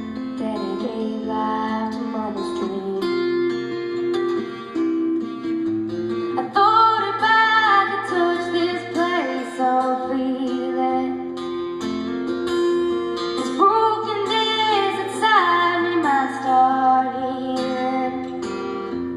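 A young female singer singing a song over acoustic guitar and a bass line, amplified through a sound system. The guitar chords carry the opening, and the voice comes in strongly about six seconds in.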